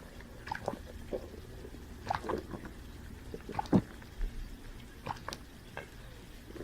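Scattered short, wet mouth clicks and smacks from someone eating a banana and drinking Sprite, with one louder smack a little past the middle.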